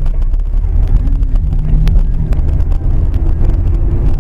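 Steady low rumble of a car's engine and road noise, as heard inside the cabin by a dash camera.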